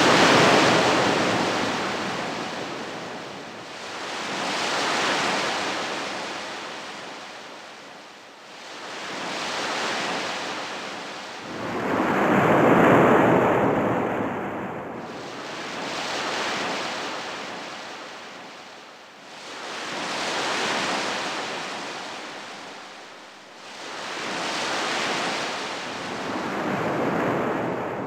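Surf washing ashore: the roar of the waves swells up quickly and fades away again, about every three to four seconds, with the loudest wave about halfway through.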